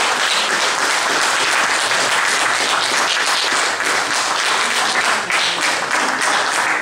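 Congregation applauding: a steady, dense clapping of many hands.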